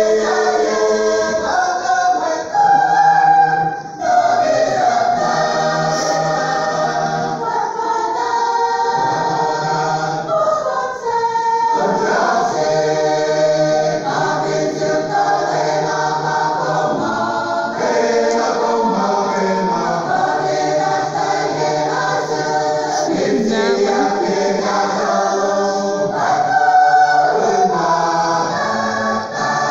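A large mixed choir of women and men singing a hymn together in several parts.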